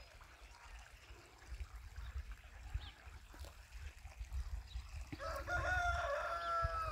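A rooster crowing once: a single long call of nearly two seconds that falls slightly in pitch, starting about five seconds in.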